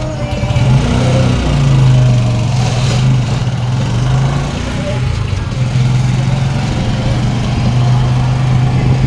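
Motorcycle engine of a tricycle running steadily at low, even revs.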